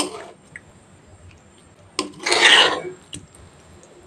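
Metal spatula scraping across the bottom of a pot of potatoes in thick masala: a short scrape at the start, then a tap and a longer scrape about two seconds in.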